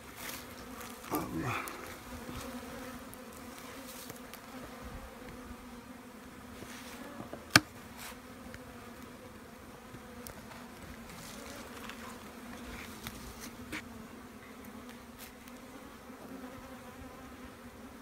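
Honey bees of a wild colony in a cut-open hollow tree trunk buzzing in a steady hum. One sharp click about seven and a half seconds in.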